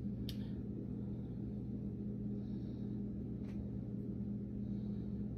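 A steady low hum, with two faint clicks, one just after the start and one about three and a half seconds in.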